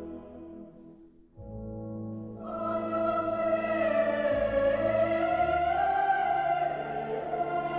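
Background music: a quiet ambient piece fades out just after a second in, then a choral piece begins with low sustained tones and singing voices over orchestra swelling in.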